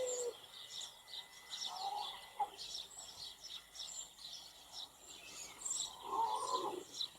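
Wild birds chirping and calling, a run of short high chirps throughout, with a lower, louder call about six seconds in.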